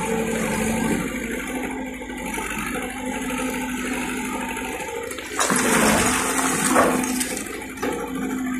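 Kubota skid steer loader's diesel engine running under load, with a steady hum from the machine. About five seconds in, a louder rushing clatter of rocks and dirt pouring from the raised bucket lasts a second or two.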